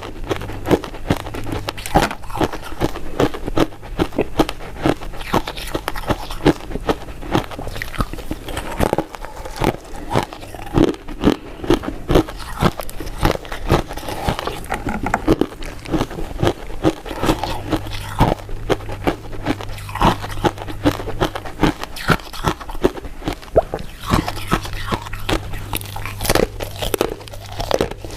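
Close-miked eating of powder-coated mint sweets: repeated crisp bites and crackly, crunching chews at an irregular pace of about one to three sharp ones a second.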